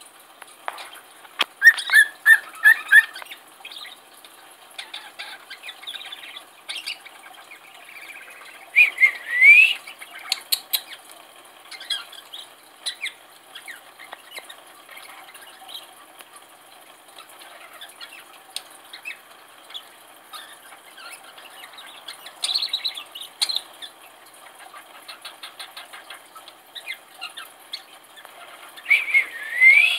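A caged cockatiel and budgerigar chirping and chattering in short bursts. There is a quick run of repeated chirps early on, and a rising whistle comes about nine seconds in and again near the end.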